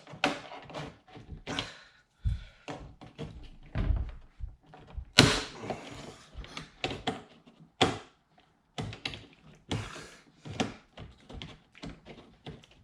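Plastic trim on a VW Passat's door being worked loose: a string of knocks, clicks and sharp snaps as tight retaining clips give way. The loudest snap comes about five seconds in, and another near eight seconds.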